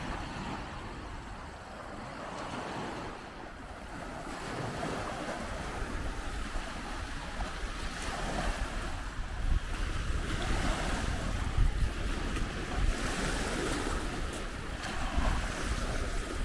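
Small waves breaking and washing up on a sandy beach, with gusts of wind rumbling on the microphone that grow stronger from about five seconds in.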